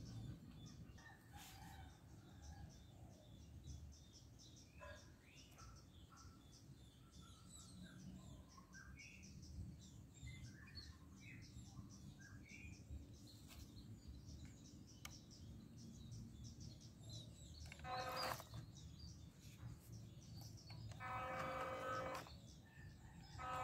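Birds chirping and calling over a faint low rumble of outdoor background noise. Near the end, a few separate steady pitched tones of a second or so each stand out as the loudest sounds.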